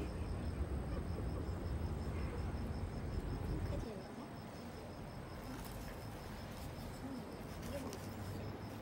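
An insect chirps in a steady high-pitched pulse, about five a second. A low rumble is loudest for the first four seconds, then drops away.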